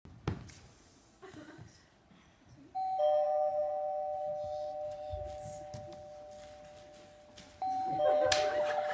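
Two-tone "ding-dong" doorbell chime rung twice: a higher note then a lower one about three seconds in, both ringing on and slowly fading, then the same two notes again near the end.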